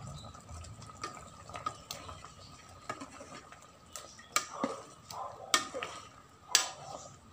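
Metal spoon stirring thick chicken curry in a rice cooker's metal inner pot: wet squelching of the sauce, with the spoon knocking against the pot, the loudest knocks about four and a half, five and a half and six and a half seconds in.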